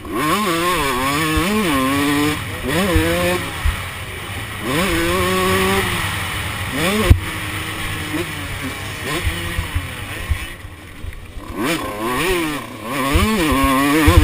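Two-stroke motocross bike engine ridden hard, its pitch repeatedly climbing as the throttle is held open and dropping at each shift or roll-off. There is a brief lull off the throttle about three-quarters of the way through. Irregular low thumps run underneath, with one sharp knock near the middle.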